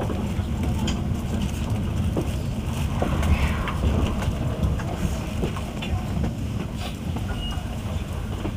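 Train running noise heard inside the passenger car of an electric train: a steady rumble of wheels on rails with scattered light clicks and knocks as it pulls into a station. The rumble eases a little in the second half.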